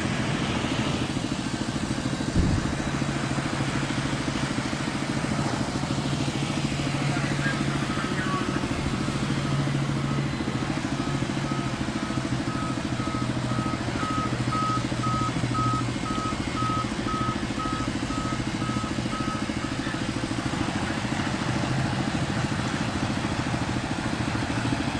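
An engine or motor of heavy machinery running steadily, with a single knock about two seconds in. Through the middle a run of short, evenly spaced electronic beeps like a reversing alarm sounds for about twelve seconds, then stops.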